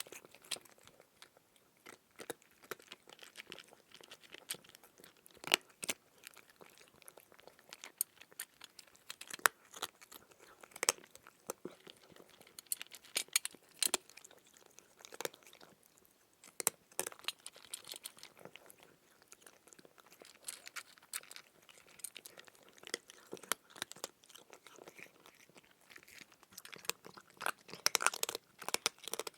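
Close-up crunching and chewing of crisp food: irregular crackling crunches, some louder than others, coming thickly throughout and busiest near the end.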